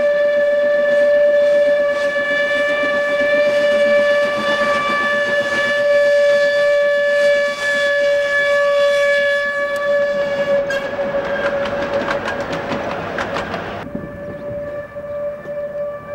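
Steam locomotive whistle held in one long, steady note. About ten seconds in, a few seconds of fast rattling train clatter come in under it, then fall away.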